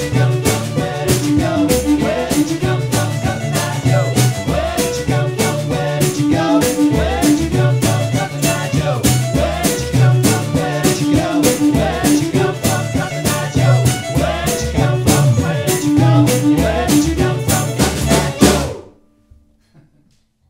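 Folk trio playing an up-tempo tune on gimbri, fiddle and drum kit: a plucked bass line under a bowed fiddle melody, driven by a steady drum beat. The tune ends on a final loud accent about eighteen seconds in.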